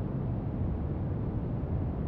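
Steady brown noise: an even, deep rumbling hiss with most of its weight in the bass and little treble, unchanging throughout.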